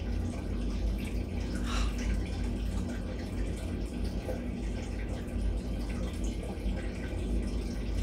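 Steady low hum and room noise, with a faint brief sound about two seconds in.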